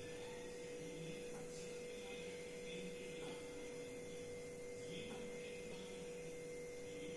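Faint, steady hum at one constant pitch.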